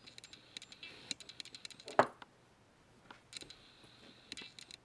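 Faint, irregular clicks and light handling noise as an aluminium mountain-bike stem is picked up and turned over in the hand, with one sharper click about two seconds in.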